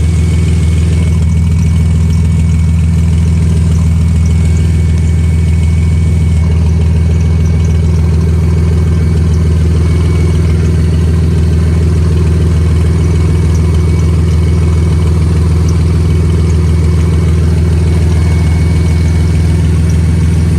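Engine idling steadily with an exhaust leak.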